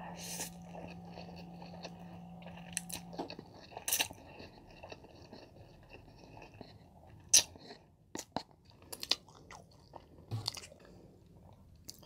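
Close-miked eating of spicy Buldak instant noodles: slurping a mouthful in, then chewing with wet mouth clicks and smacks, busiest about eight to nine seconds in.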